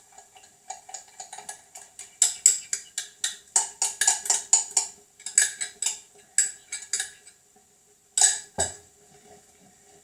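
Utensil stirring sauce in a metal saucepan, clinking and scraping against the pan about four times a second as the sauce is worked to thicken. The stirring stops about seven seconds in, and a single heavier knock follows.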